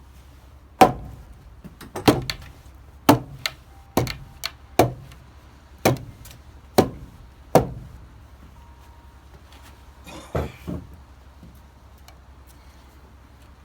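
Sharp, irregular knocks on wood, like log rail pieces being hammered into place: about a dozen blows roughly a second apart, each ringing briefly, then two lighter knocks a couple of seconds later.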